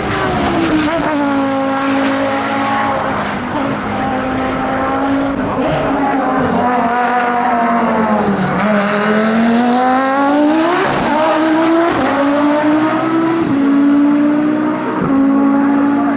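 Race car engine at full throttle on a hillclimb run, its pitch holding high with quick gear changes. The pitch dips lowest about halfway through, then climbs again.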